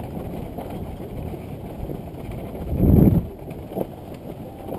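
Dirt bike running on an off-road trail, a steady rumbling noise with wind on the microphone, and a louder low surge lasting about half a second near three seconds in.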